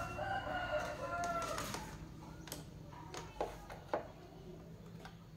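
A bird's drawn-out call over about the first two seconds, then a few sharp small clicks as multimeter test probes and leads are handled, over a low steady hum.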